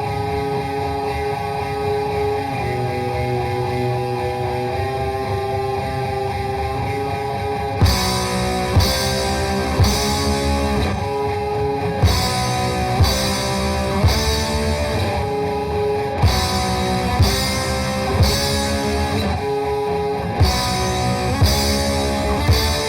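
Grindcore band recording: distorted electric guitar chords ring out alone, then about eight seconds in the drums come in with a heavy hit roughly once a second under the riff.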